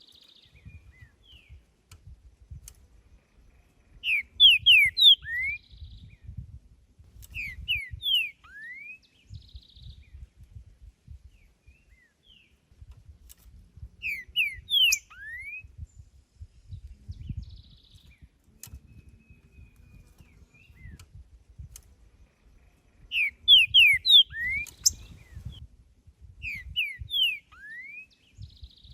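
Green-winged saltator (trinca-ferro) singing: short phrases of loud, clear whistled notes, some sliding upward, repeated about five times with pauses of a few seconds between them.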